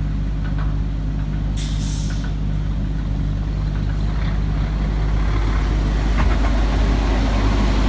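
Diesel engine idling steadily at an even pitch, with a short hiss of released air about two seconds in.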